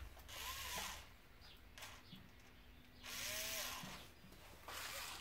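Three short runs of a small electric motor, each under a second long, its whine rising and then falling in pitch as it spins up and stops.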